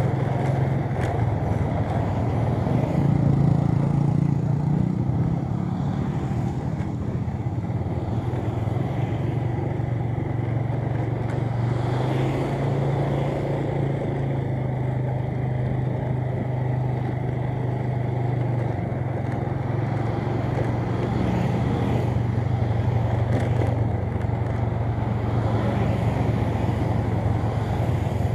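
Motorcycle engine running steadily while riding along a road, with tyre and traffic noise. The engine note rises briefly about three to five seconds in, then settles into an even hum.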